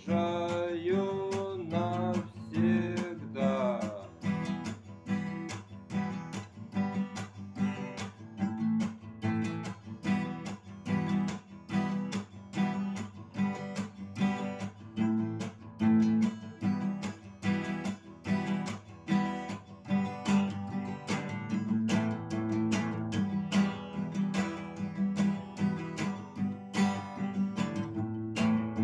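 Acoustic guitar strummed in a steady rhythm, playing a song's instrumental break. A sung note bends and fades out over the first few seconds.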